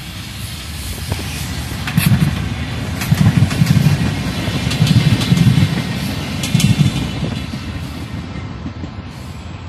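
Biotren UT-440 electric multiple-unit commuter train passing, its wheels clattering over the rail joints in four bunches of knocks about a second or so apart. The sound fades away near the end.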